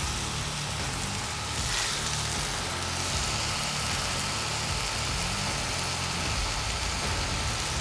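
Burgers and buns sizzling on a hot flat-top griddle, a steady hiss, over a steady low rumble.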